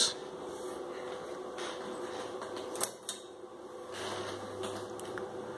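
Steady hum of a cooling fan, with a few faint clicks about one and a half to three seconds in.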